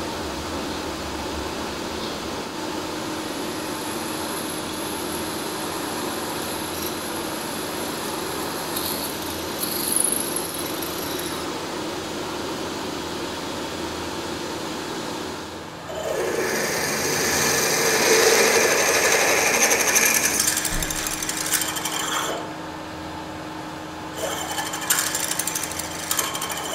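Manual milling machine running with its spindle turning a drill bit against a free-machining steel cylinder. About two-thirds of the way through it gets louder and rougher as a twist drill cuts into the steel, and a few sharp clicks come near the end.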